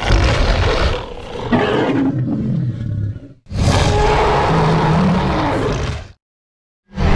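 Loud, rough roar-like sound effects in separate spliced clips, cut apart by stretches of dead silence, the longest lasting about half a second near the end.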